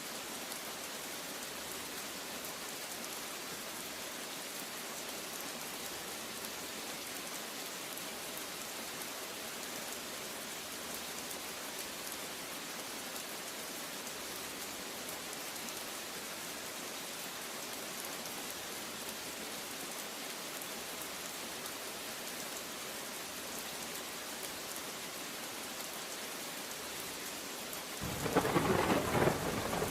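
Steady heavy rain hissing. About 28 seconds in, a loud rumble of thunder breaks in over it.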